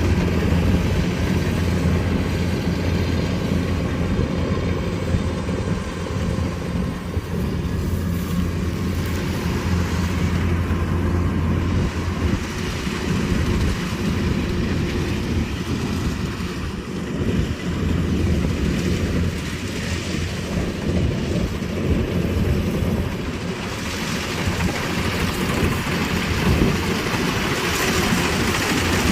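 Kubota DC-105X combine harvester running steadily, its engine giving a constant low drone over a wash of machine noise.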